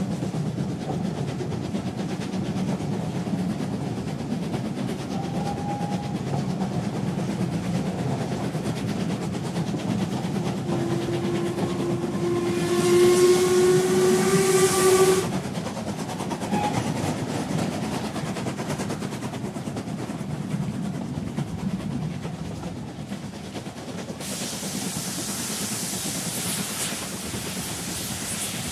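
A steam whistle blows once for about four seconds, starting about a third of the way in: one pitched tone with a hiss of steam, rising slightly in pitch and cutting off sharply. Around it is a steady low rumble of hall noise.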